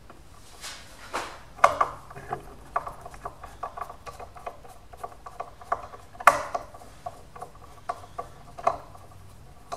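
Phillips screwdriver backing the pivot screw out of a scooter's aluminium brake lever: a run of small, irregular metal clicks and scrapes, with a sharper click about six seconds in.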